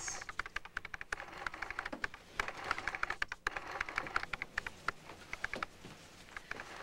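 Typing on an office typewriter: keys struck in a quick, irregular run of several strokes a second, thinning out near the end.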